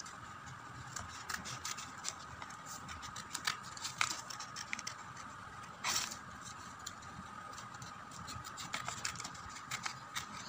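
Small scissors snipping through thin craft paper, with the paper rustling as it is handled: scattered short clicks and crisp cuts over a faint steady hum.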